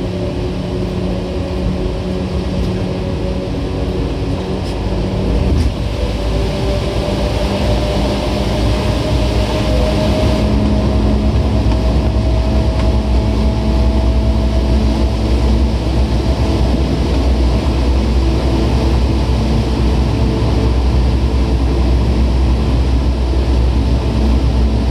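Tokyu 8500 series electric train running: a steady rumble of wheels on rail with several motor whines. One whine rises slowly in pitch over the first half, and the low rumble grows louder in the second half.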